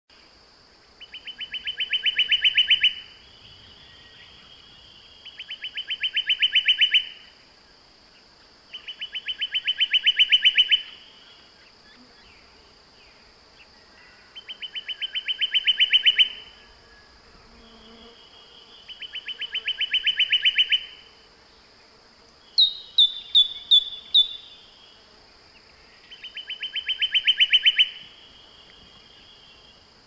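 A bird gives a rapid pulsed trill about two seconds long that grows louder as it goes, six times over at intervals of four to five seconds. A steady high-pitched whine runs underneath. Past the middle come five quick, sharp, falling chirps.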